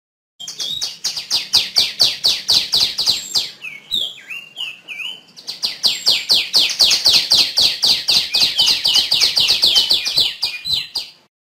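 Female tiểu my songbird giving a rapid chattering trill of high, downward-sweeping notes, about eight a second. About four seconds in it breaks off for a moment into a few lower, slurred notes, then trills again until it stops abruptly near the end.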